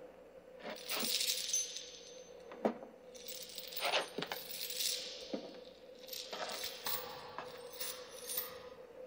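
Metallic jingling and clinking in a string of short bursts and sharp clicks, the loudest about four seconds in, over a faint steady hum.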